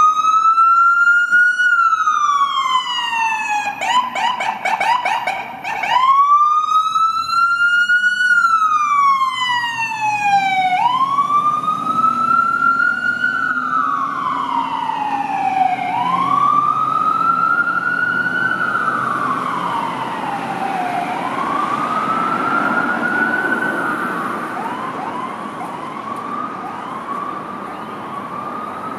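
Electronic siren on a Ford Super Duty fire-medic pickup, wailing in slow rising-and-falling sweeps of about five seconds, with a couple of seconds of rapid warbling about four seconds in. It fades as the truck drives away and switches to faster, shorter sweeps near the end.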